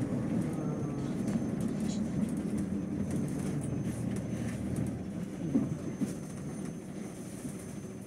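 City bus running, heard from inside the cabin: a steady engine and road rumble that eases off about five seconds in as the bus slows to a stop at a red light, with one short knock just after.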